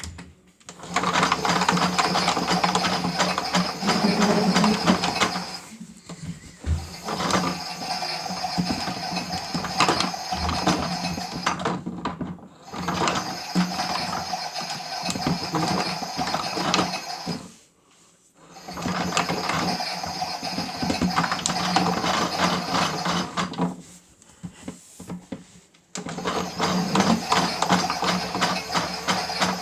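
Toy washing machine's small electric motor turning the drum with a steady hum and gear rattle, in runs of about five seconds separated by brief pauses, as in a wash tumble.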